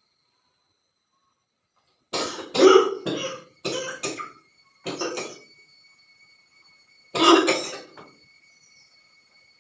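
A woman coughing in a fit: a run of harsh coughs starting about two seconds in, a few more around five seconds, and a last loud one near seven seconds. It is the coughing set off by the fumes of burning chillies catching in her throat.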